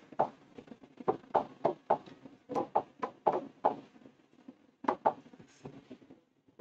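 Stylus tapping and knocking against an interactive whiteboard's screen while writing and picking tools: a string of short, irregular taps, about two or three a second, with a gap of about a second in the middle.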